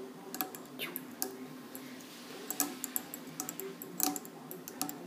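Light, irregular clicks and taps as thread is wound by hand around a hook held in a fly-tying vise, over a faint steady hum.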